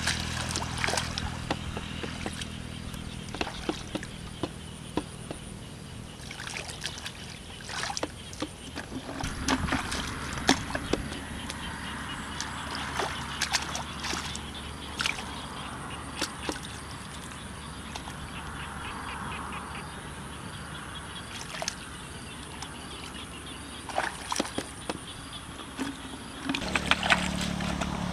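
Hands groping and splashing through shallow muddy water and mud, with irregular splashes, sloshes and squelches.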